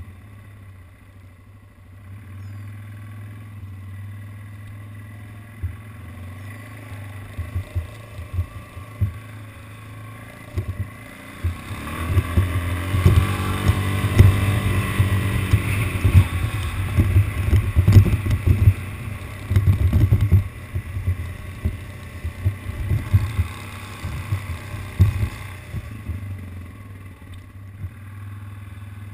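ATV engine running at low speed, then opening up about twelve seconds in, its pitch rising and falling for several seconds before it slows again near the end. Frequent short knocks come through as the quad bumps over rough ground.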